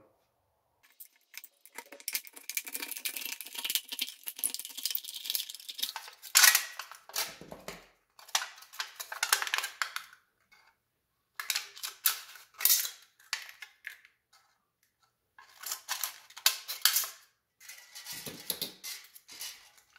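Scissors cutting through a thin aluminium drink can, the sheet metal crinkling, in a series of bursts with short pauses between them.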